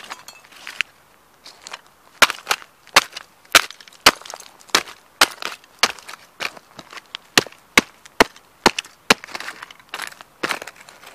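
Rigger safety boots stomping on the pieces of a model car on gravel: a run of sharp cracks and crunches of breaking plastic, about two a second, starting about two seconds in.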